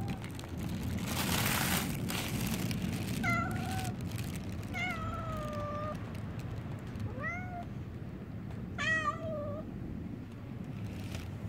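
Stray cat meowing four times, a second or so apart, each meow a short pitched call; the last is the loudest.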